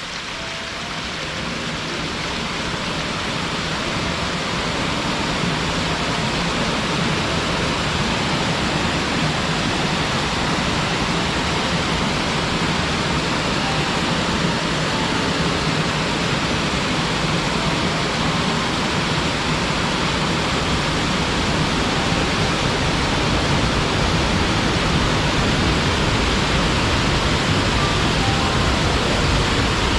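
Waterfall pouring into its pool: a steady, even rushing of falling water that fades in over the first few seconds.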